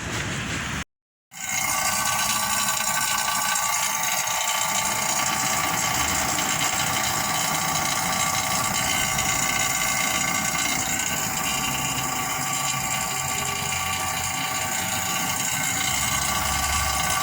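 Electric pump motor running steadily: a constant hum with several steady whining tones layered over it, starting just after a brief cut about a second in.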